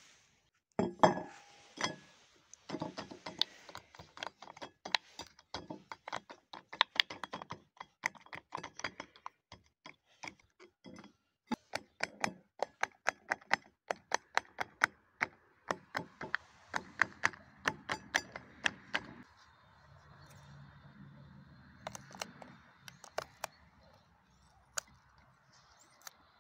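Silicone pop-it fidget toy having its bubbles pushed through one after another by a finger: a long run of sharp pops, several a second, stopping about three-quarters of the way through. A few scattered clicks follow.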